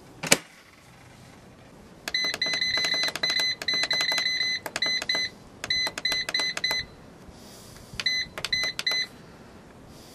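Power Air Fryer Oven Plus control panel beeping as its buttons are pressed to set the cook: many short, identical beeps in quick runs from about two seconds in, a brief pause, then three more near the end. A single sharp clack at the very start as the oven's glass door shuts.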